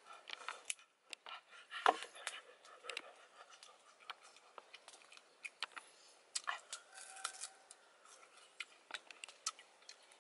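Close-up eating sounds: scattered small clicks and smacks of chewing and of fingers picking and peeling a piece of fruit, the sharpest click about two seconds in. A thin steady tone sounds briefly past the middle.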